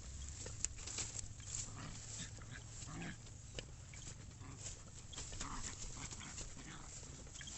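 A dog's short noises amid rustling and scattered clicks.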